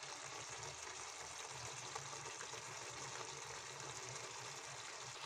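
Jackfruit curry simmering in a kadhai, a faint steady hiss and bubble of the cooking sauce, with no stirring.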